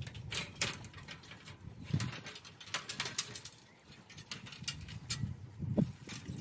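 Aluminium ladder clicking and knocking as it is handled and stood up against a tree: a scatter of short, light metallic knocks.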